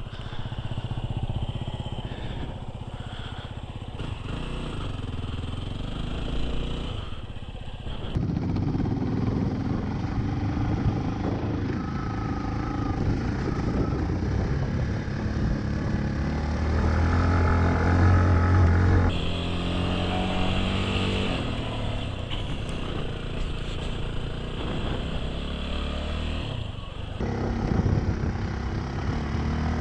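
Yamaha WR250R dual-sport motorcycle's single-cylinder engine running while riding a rough dirt track, its pitch rising and falling with the throttle. The sound changes abruptly a few times where separate riding clips are joined.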